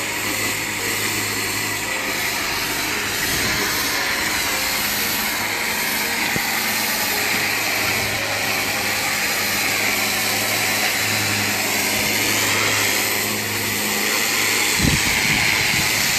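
Pressure washer's high-pressure water jet hissing against a fibreglass boat hull as barnacles are blasted off, over the steady hum of the washer's pump motor. A low bump comes near the end.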